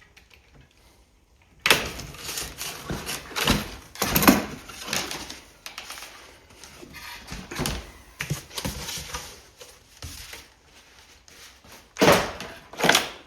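Packaging being pulled off and handled on a newly unboxed e-bike: irregular rustling and knocks, with a louder flurry near the end.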